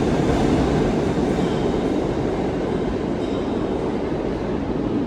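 New York City subway R160 train running on the rails: a steady, loud rumble of wheels and cars, easing slightly toward the end.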